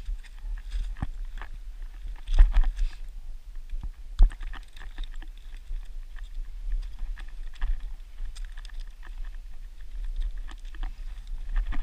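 Hiking boots crunching and scraping over loose rock and scree, with trekking pole tips clicking and knocking on stone, a couple of louder knocks about two and a half and four seconds in. A steady low wind rumble on the microphone underneath.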